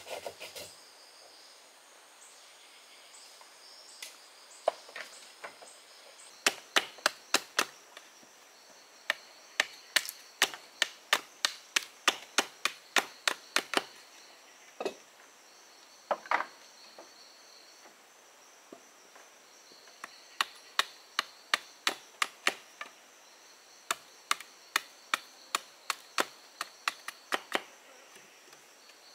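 A large knife chopping into a green bamboo pole in runs of sharp, quick strokes, about three a second, with short pauses between runs. Insects sing steadily in the background.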